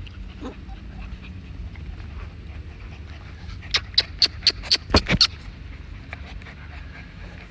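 Pembroke Welsh corgi puppy close to the microphone, giving a quick run of about seven short, sharp dog sounds around four to five seconds in, over a steady low background hum.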